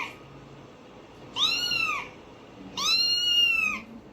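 Domestic cat meowing: the end of one meow right at the start, then two more meows, each rising and then falling in pitch.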